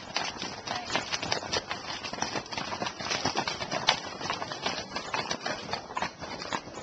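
Hooves of several ridden horses walking past on a stony dirt track, an irregular clatter of hoof strikes.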